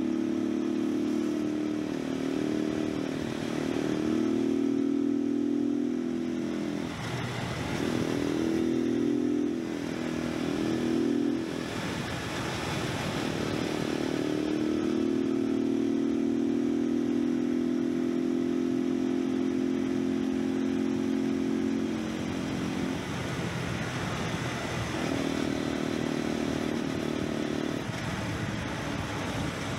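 Cagiva River 500's single-cylinder engine running at a steady cruise, heard from on board over wind rush. Its note drops away for a moment several times, about 7, 11, 23 and 28 seconds in.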